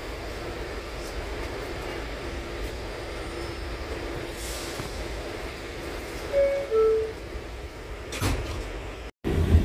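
Steady low hum of an R211T subway car at rest, then a two-note descending door chime about six seconds in, and a knock as the doors shut about a second later. Near the end the sound cuts abruptly to a louder train rumble.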